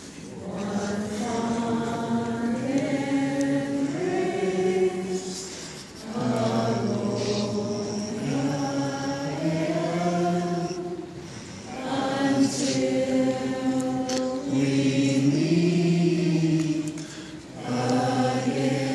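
A group of voices singing a slow song together, in long held phrases with short pauses between them.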